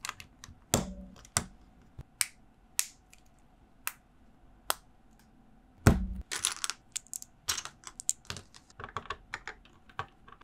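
Plastic LEGO bricks clicking and tapping at an uneven pace as they are handled and snapped together, with the loudest knock about six seconds in followed by a quick clatter of clicks.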